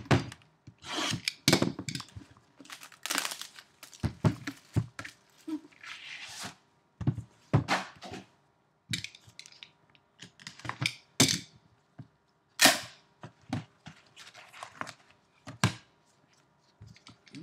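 Cardboard trading-card boxes being handled by gloved hands: irregular knocks and thunks as boxes are set down, with scraping and rustling as they slide across the table and one is pulled out of its case.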